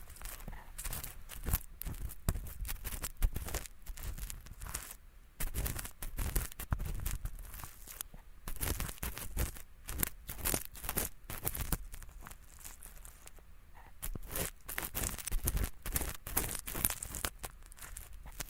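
An ear-cleaning tool scraping and scratching in an ear, close up: a dense, irregular run of crackly scratches with brief lulls about five seconds in and again near thirteen seconds.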